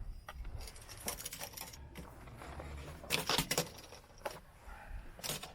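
Small clicks, taps and short scrapes of a template being handled and slid into place against an RV compartment door, with the loudest scraping a little past halfway.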